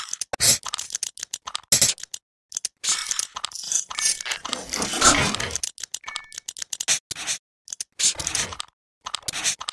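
Experimental soundtrack of sampled household percussive sounds chopped into rhythmic patterns: short noisy hits that cut off abruptly, with brief silences between them. The hits run together in a denser stretch through the middle.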